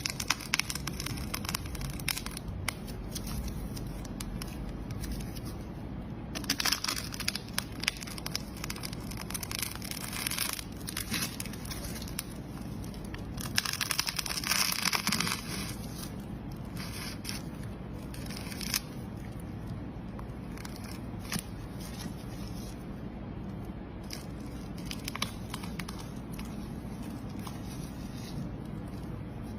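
Brittle material crackling and crunching as it is broken apart: quick runs of sharp crackles, with a denser, louder stretch about fourteen seconds in.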